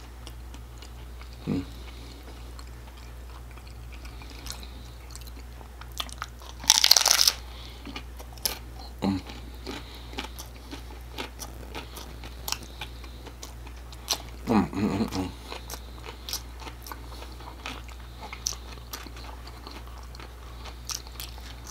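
Biting and chewing a crunchy hard-shell taco: one loud crunching bite about seven seconds in, then many small crunches as it is chewed.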